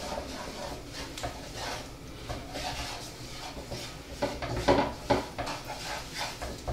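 Wooden spoon stirring chunks of chicken, bacon and mushroom coated in flour in a non-stick frying pan, scraping and knocking against the pan in irregular strokes, with the loudest knocks just under five seconds in.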